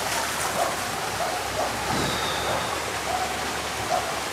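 Steady rush of falling water, a waterfall or water pouring into a pool, with a brief high whistle about two seconds in.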